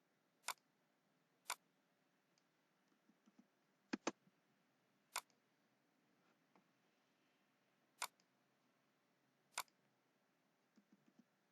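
Computer mouse clicking: single sharp clicks a second or more apart, a quick double-click about four seconds in, and a few fainter soft clicks, over near-silent room tone.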